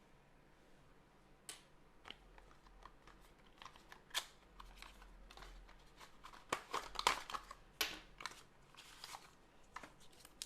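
Cardboard and paper packaging being handled during an unboxing: scattered rustles, crinkles and light taps, starting about a second and a half in and busiest in the middle.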